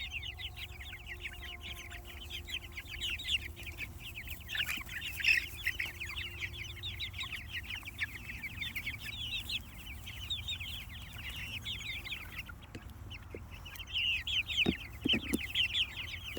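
A flock of young Jersey Giant chickens peeping continuously, many short high downward-sliding chirps overlapping, over a steady low hum. A few soft knocks come near the end.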